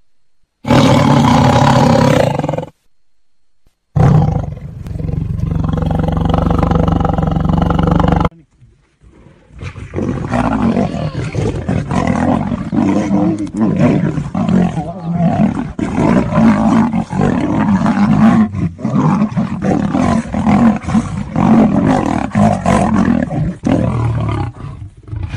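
Big cats, a lion and a tiger, roaring: two long roars in the first eight seconds, then from about ten seconds on a continuous stretch of roaring and snarling that keeps swelling and dropping, as in a fight.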